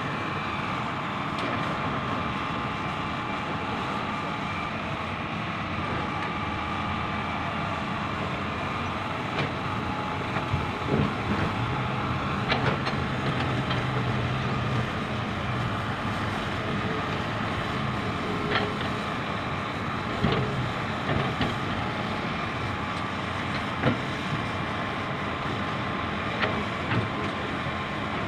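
Hitachi 310 hydraulic excavator's diesel engine working steadily as it loads and digs soft rock, with a few sharp clanks of the steel bucket against rock.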